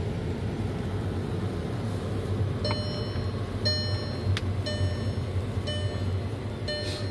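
Moving car's cabin: steady low road and engine rumble. From about three seconds in, the car's electronic warning chime sounds once a second, a short ringing tone each time.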